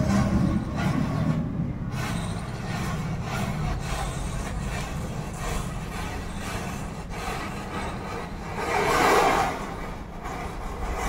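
A chain of matchsticks burning, the heads catching one after another in a continuous crackling hiss, with a louder flare about nine seconds in.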